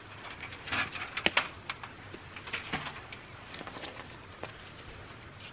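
Handling noise from a homemade crayfish trap being set down and moved: a scatter of sharp clicks and rustles, thickest about a second in and again just before the middle, then lighter rustling of clothing.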